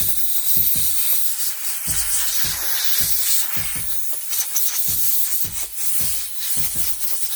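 Compressed-air blowgun hissing in uneven blasts as it blows out a model engine's crankshaft, clearing metal fragments from the part.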